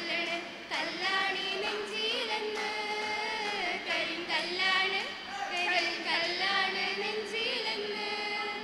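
A group singing a song together into microphones, mostly women's voices, with long held notes.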